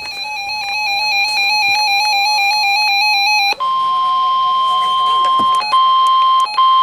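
An electronic emergency alert signal. It opens with a rapid warbling synthesized tone pattern, then about three and a half seconds in switches to a steady single-pitch alert tone with a few brief dropouts. This is the attention tone that precedes a severe thunderstorm warning broadcast.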